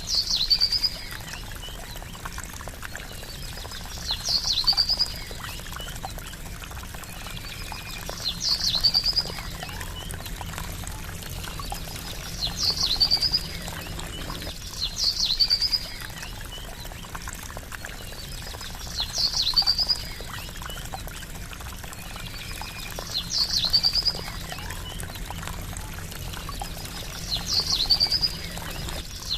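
Trickling water running steadily, with a short, high bird call repeating about every four seconds. The bird call is the loudest sound each time.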